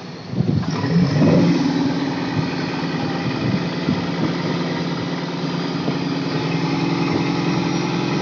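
Fishing boat's engine picks up sharply about half a second in, then runs steadily at a constant pitch.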